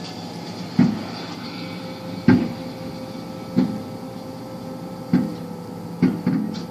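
Distant aerial firework shells bursting: six booms about a second apart, the last two close together, each followed by a short echoing rumble.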